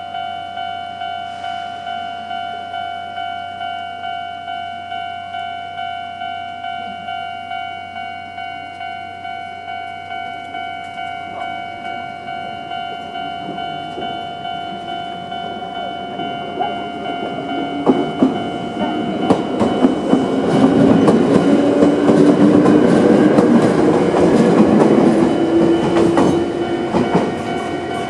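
Old-type electronic level-crossing warning bell ringing in a fast, steady rhythm. From a little past halfway, a Toyama Chiho Railway 17480-series electric train runs over the crossing, its wheels clacking over the rail joints and its rumble drowning out the bell.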